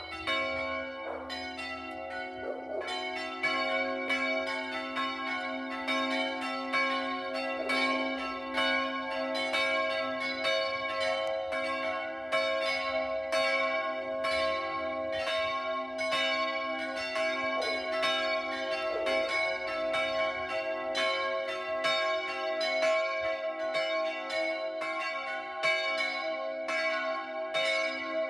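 Church bells ringing from the tower, a steady run of strokes about twice a second with several bell tones hanging on and overlapping between them.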